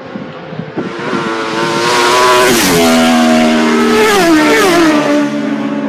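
A superbike-class racing motorcycle approaches at speed and passes by. Its engine note grows loud, then drops in pitch in a few quick steps.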